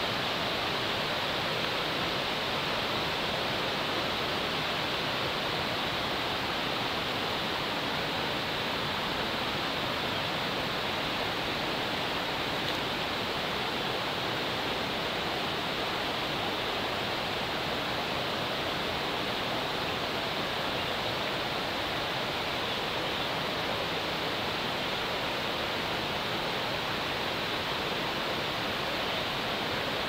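Waterfall running steadily: an even, unbroken rush of falling water.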